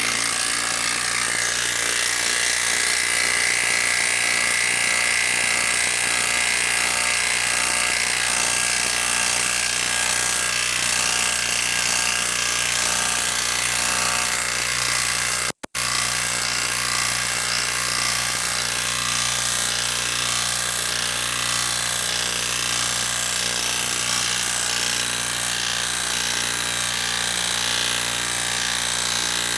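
Hilti brushless 1/2-inch cordless impact wrench hammering steadily under load as it drives a 10-inch screw into a solid wood round without a pilot hole. The sound stops for a split second about halfway through, then carries on unchanged.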